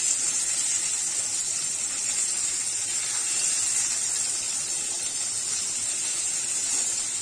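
Rohu fish steaks sizzling steadily in a little oil in a non-stick wok over a high flame: an even, high hiss.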